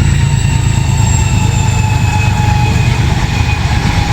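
Holden Colorado ute running on the road: a steady low engine and road rumble with faint whines that slide slowly down in pitch.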